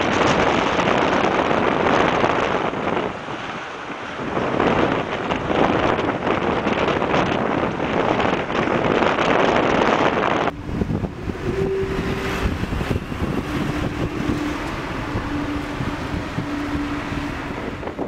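Strong wind buffeting the microphone over rough sea surging against a harbour wall. About ten seconds in it cuts abruptly to a slightly quieter stretch of wind noise with a few faint held tones.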